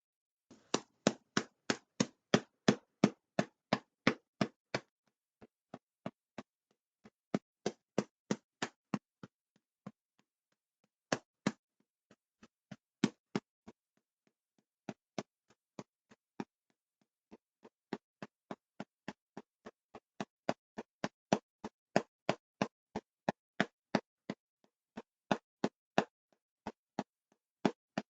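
Powdered milk being handled: a run of short, crisp knocks or crunches, about three to four a second, coming in groups with brief pauses between them.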